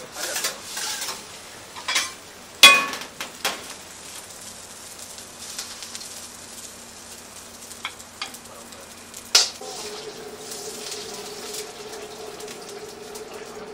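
Fried rice being stir-fried in a wok: a faint sizzle under a metal ladle scraping and clanking against the wok, with one loud ringing clang a few seconds in and another sharp clank about two-thirds through. After that a steady low hum sets in.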